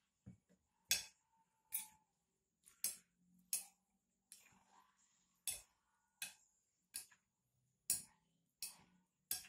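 Metal spoon clinking against a glass bowl while stirring boiled instant noodles into beaten egg: a sharp tap about once a second, with faint wet stirring between.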